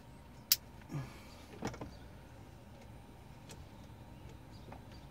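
A sharp plastic click about half a second in, then a few fainter clicks and knocks: wiring harness clips being pried loose and released from the ignition switch area.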